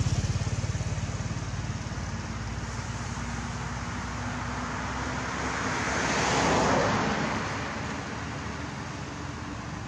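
Passing road traffic: a vehicle engine's low pulsing note fading away in the first couple of seconds, then another vehicle swelling past and fading, loudest about six to seven seconds in.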